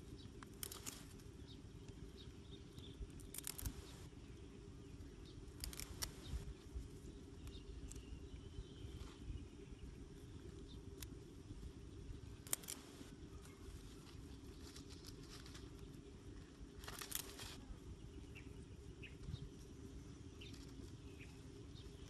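Grass and plant stems being handled and snapped by hand, with several short crackling rustles over a low steady outdoor background and a few faint chirps.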